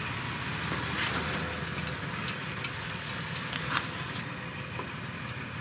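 Off-road 4x4 engine running steadily at low revs as the vehicle crawls over rock, with a few faint clicks over the rumble.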